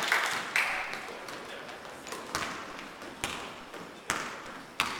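A basketball bouncing on a hardwood gym floor, with sharp echoing thuds about every second during play.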